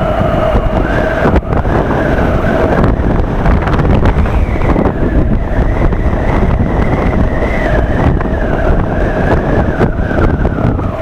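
Honda motorcycle riding along a road: a loud, steady rush of wind buffeting the microphone, with the engine's note wavering underneath, rising slightly about four seconds in and dropping back near the end.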